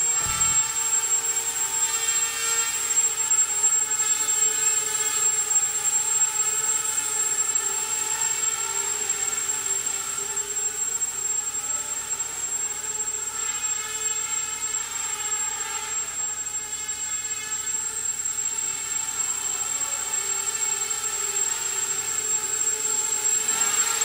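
Small racing quadcopter's four brushless motors and propellers running in flight: a steady buzzing whine made of several tones whose pitch drifts up and down as the quad hovers and moves about.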